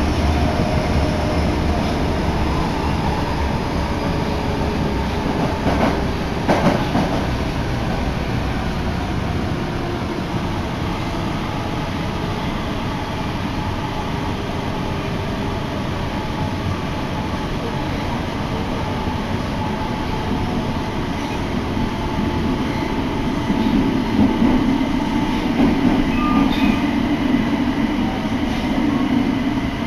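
Osaka Metro Tanimachi Line subway train running between stations, heard from inside the car: a steady rumble of wheels and motors with faint steady whine tones. A couple of sharp knocks come about six seconds in, and a louder low hum rises near the end.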